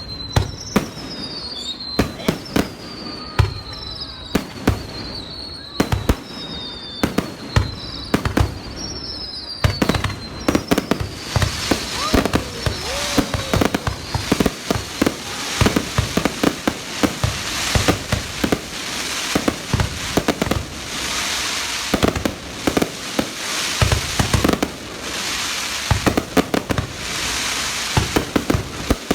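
Fireworks going off in quick succession. Over the first ten seconds or so, sharp bangs come with repeated falling whistles. After that they give way to a dense crackle with many bangs.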